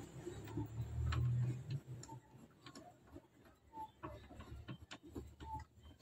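Screwdriver turning a screw into the dashboard panel, giving faint irregular clicks and ticks, with a low rumble under the first two seconds.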